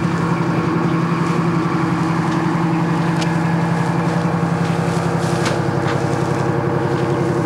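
Diesel engine of a tracked armoured personnel carrier idling steadily, with an even low hum and a few faint clicks over it.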